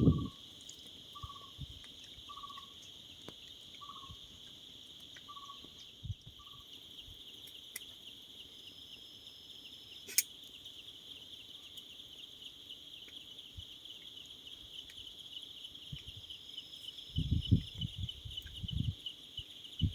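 Night insect chorus: a steady, high-pitched, pulsing trill. For the first six seconds another animal calls with a series of about seven short, evenly spaced notes. Near the end there is low rumbling noise.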